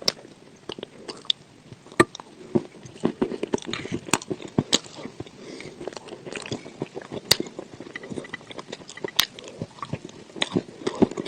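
Dry clay being bitten and chewed close to the microphone, with irregular sharp crunches and a few louder cracks.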